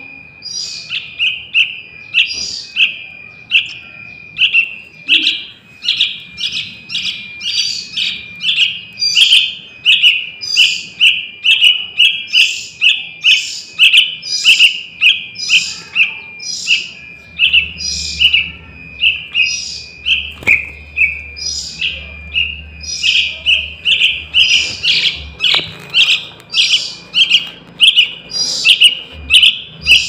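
Young yellow-vented bulbul (trucukan) chick calling: a short high chirp repeated about twice a second, over a steady thin high tone. It is a fledgling's call, used as a lure to draw wild trucukan.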